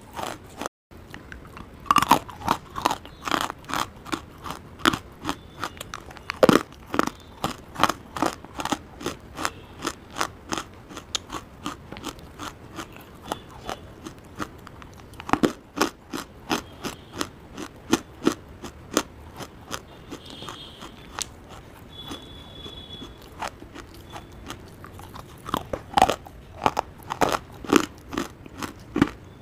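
Close-miked crunching and chewing of hard, dry clay lumps, with sharp crunches several times a second as pieces are bitten off and ground between the teeth. The loudest bites come about two seconds in, again at about six seconds, and in a cluster near the end. There is a quieter lull shortly before that cluster.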